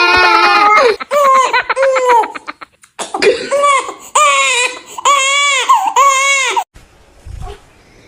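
Crying: a long wail, then a string of short cries, then four drawn-out rising-and-falling wailing cries, fading to quiet about a second before the end.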